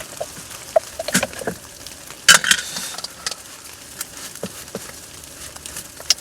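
Scattered light taps, knocks and rustles of cooking things being handled as dough-making begins, with one louder, sharp clatter a little over two seconds in.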